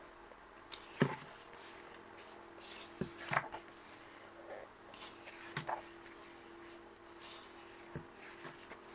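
Pages of a glossy photobook being turned and pressed flat by hand: short paper rustles and flaps every two to three seconds, over a faint steady hum.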